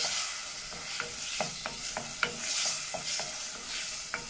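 Cherry tomatoes frying and sizzling in a stainless steel pot while a wooden spoon stirs them, with irregular light knocks and scrapes of the spoon against the pot.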